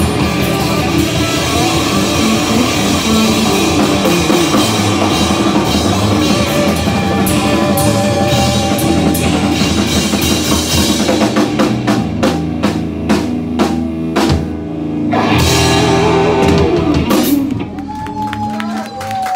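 Live instrumental blues-rock band playing loud on electric guitars, bass and drum kit. Past the middle it builds into a run of rapid drum hits and crashes, then the full band drops out shortly before the end, leaving one note gliding downward.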